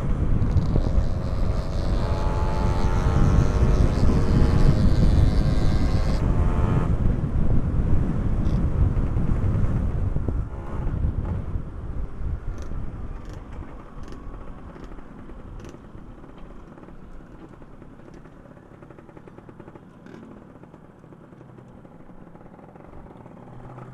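Wind rumbling over a helmet microphone while riding a two-stroke motorcycle, its engine revving up in rising pitch during the first several seconds. From about ten seconds in, the wind and engine drop to a much quieter, steadier running.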